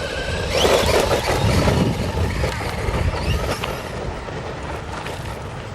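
Brushless electric motor of a Traxxas Stampede 4x4 RC truck whining as it speeds up, with short rising whines about half a second in and again near three seconds, over a steady rumble of tyres on a dirt road.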